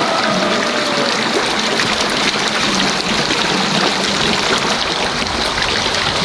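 Steady rushing and trickling of running water.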